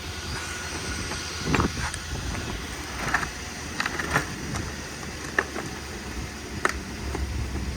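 Steady low rumble and wind buffeting the microphone, broken by a handful of short, sharp clicks and knocks.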